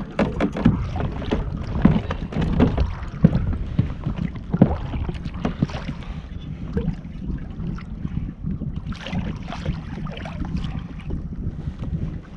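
Wind rumbling on the microphone and water moving against a fishing kayak, with a string of sharp knocks and clicks over the first five seconds from gear being handled aboard.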